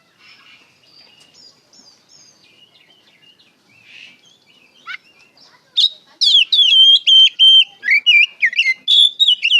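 Oriental magpie-robin singing: soft, varied warbling at first, then from about six seconds in a loud run of rapid whistled phrases with sharp up-and-down sweeping notes.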